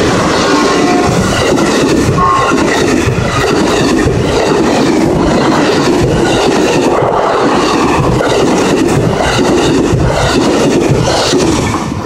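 Amtrak Coast Starlight's bilevel Superliner passenger cars passing close at speed: a loud, continuous rush of wheels on rail with repeated clacks. The sound falls away sharply near the end as the last car goes by.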